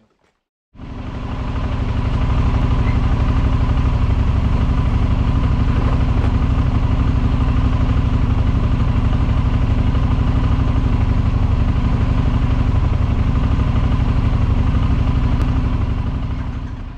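Motorcycle engine running at a steady, unchanging speed. It fades in just under a second in and fades out near the end.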